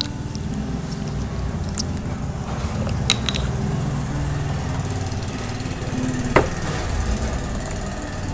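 A steady low motor rumble, like an engine idling, with a few small clicks about three seconds in and a sharper knock about six seconds in.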